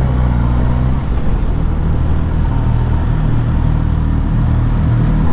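Suzuki GSX-S1000's inline-four engine running steadily under way, heard from the rider's position with wind rush over it.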